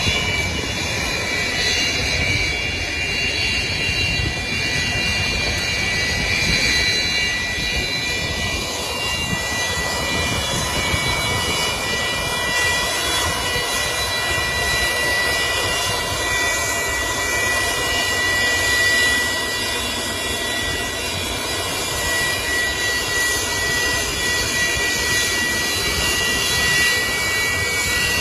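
Antonov An-225's six D-18T turbofan engines running steadily at taxi power: a high, even whine over a broad rushing noise.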